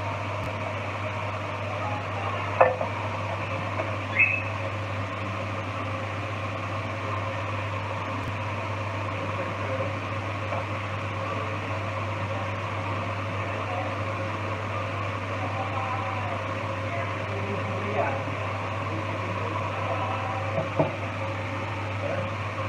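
A kitchen fan motor running with a steady low hum and whir, with a few light clinks of utensils on the metal frying pan.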